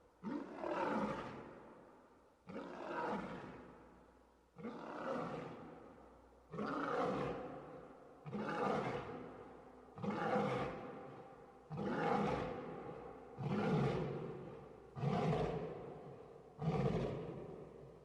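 Lion roaring: a series of about ten short roars, one every one and a half to two seconds, each starting sharply and fading away.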